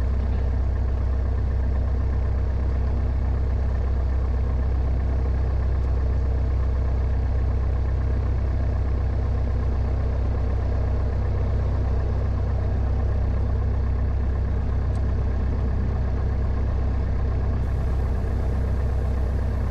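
Grumman AA-5 single-engine light aircraft's piston engine and propeller running steadily at low taxi power, heard inside the cockpit as a constant low drone.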